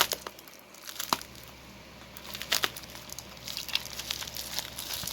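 Packaging being unwrapped by hand: crinkling and tearing as the wrapping is pulled open, with scattered small clicks.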